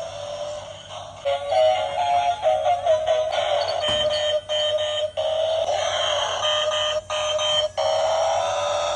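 Electronic-sounding music, a simple melody of stepping notes, cut by several brief dropouts in the second half.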